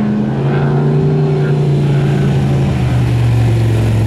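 Trophy truck engine running under power as the truck passes close by. Its note drops shortly after the start and then sinks slowly.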